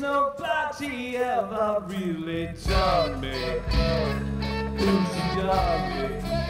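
Live band music led by a bending harmonica line over electric guitar. The bass and drums sit back for the first two and a half seconds, then come in full with a steady beat.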